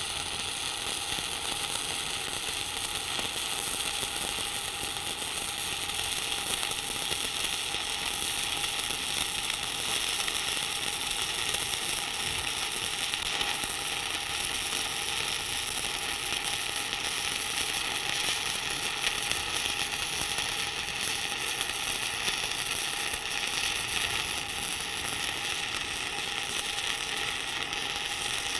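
1/8-inch 6010 stick electrode arc burning steadily, a continuous crackle and sizzle, while laying the hot pass over the root of a steel fillet weld at about 95 amps.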